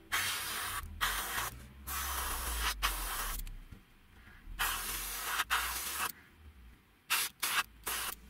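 Airbrush spraying aluminium metal paint in a series of short hissing bursts, each about a second long with brief pauses between, ending in a few quick puffs.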